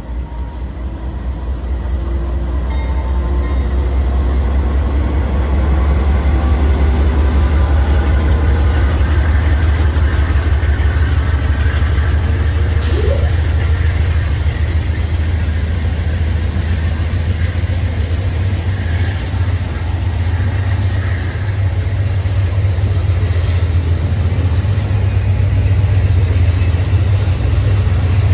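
Amtrak passenger train rolling past close by: a diesel locomotive's low engine rumble and the cars' wheels running over the rails. The sound builds over the first few seconds and then holds loud and steady.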